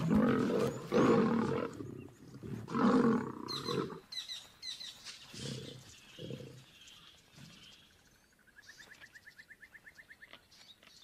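Male lions fighting: loud snarling and roaring growls through the first four seconds. Two shorter, quieter growls follow at about five and a half and six seconds in.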